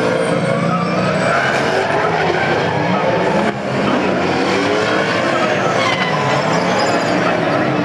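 Several V8 touring-car racing engines running hard together, their pitches overlapping and rising and falling as the cars accelerate, shift and brake. The sound dips briefly about three and a half seconds in.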